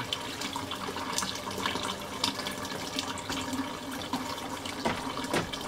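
Water draining from a water heater tank through a hose and splashing steadily into a plastic tub.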